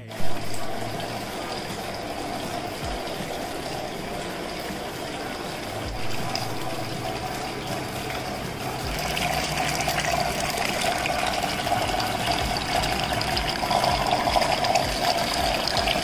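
Water from a small cement tabletop waterfall fountain pouring from a spout into a pot and splashing down into the basin: a steady splashing trickle that grows a little louder about nine seconds in.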